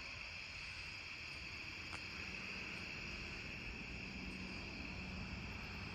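Late-summer night chorus of crickets and other insects, a steady high-pitched drone that does not let up.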